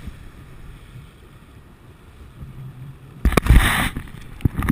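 Jet ski engine dropping back to a low, quiet running with water washing around the hull. About three seconds in, loud knocks and rubbing as the GoPro camera is handled.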